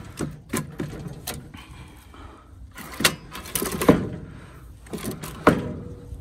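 Wooden blocks being set in place on a pallet against a steel crate frame: a string of separate wood-and-metal knocks and clatters. The loudest come about three seconds in, just before four seconds, and again about five and a half seconds in.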